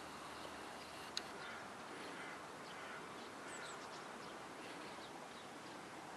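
Faint, steady outdoor background noise with a few short, high bird chirps and one sharp click about a second in.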